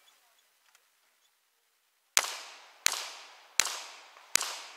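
Four handgun shots about three-quarters of a second apart, starting about two seconds in, each followed by a ringing echo that dies away.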